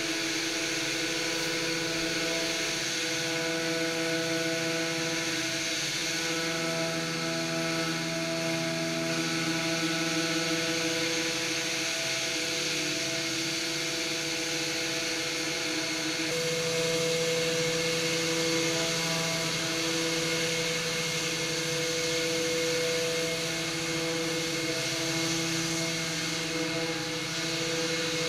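Random orbital sander with 80-grit paper sanding the bare wooden strip hull of a kayak. It gives a steady motor whine over a sanding hiss, and its pitch shifts slightly now and then as the sander is moved and pressed.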